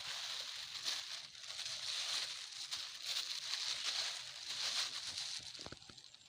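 Old plastic sheeting crinkling and rustling as it is pulled out of the soil and undergrowth and handled, a crackling hiss that swells and eases in waves and dies away near the end.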